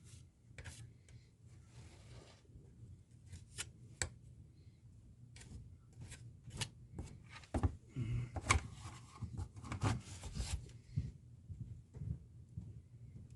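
Plaster being spread and worked into shape around a model crossing gate: scattered light scrapes, rubs and small taps, busier and louder in the second half.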